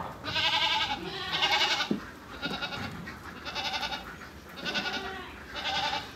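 A herd of goats bleating, about six wavering bleats one after another.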